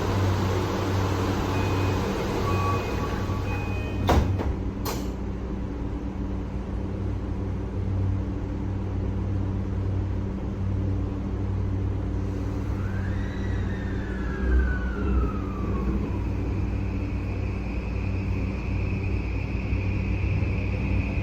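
Inside a Tokyu 3020 series train car at departure: a few short electronic beeps, then two sharp thuds about four seconds in as the doors shut. The train then pulls away over a steady low motor hum, with an electric whine that rises and then falls away near the middle, and a steady high tone near the end.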